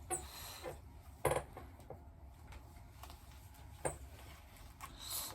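A few light clicks and soft rustles of small handling in a small room: two short sharp clicks, one about a second in and one near four seconds, between faint brushing noises.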